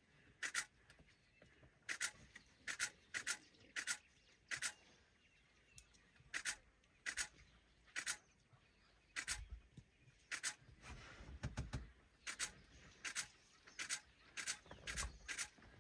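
Short, high-pitched animal chirps repeated at irregular intervals, roughly once a second, with a low rumble underneath from about nine seconds in.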